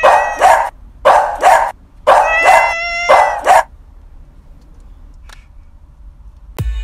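A dog barking in quick double barks, four pairs about a second apart. Near the end a music track with a heavy beat starts.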